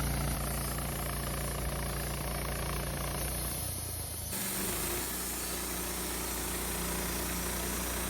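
Woodmizer band sawmill's engine running steadily while milling Douglas fir logs. The sound changes abruptly about four seconds in.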